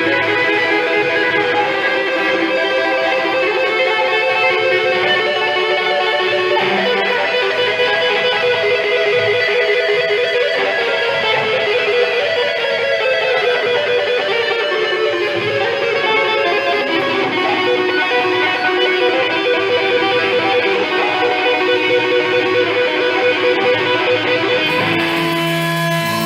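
A rock band's electric guitars playing, with held notes ringing over one another and a slowly falling line about halfway through. About a second before the end the music changes to a new passage with low sustained tones.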